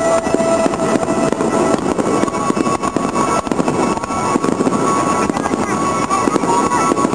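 Aerial fireworks bursting into crackling stars: a dense, continuous crackle with no single big bang standing out, mixed with music playing alongside.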